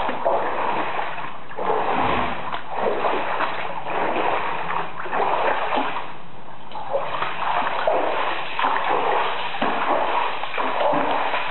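Floodwater gushing and splashing from a cloudburst, continuous and loud, swelling and easing unevenly.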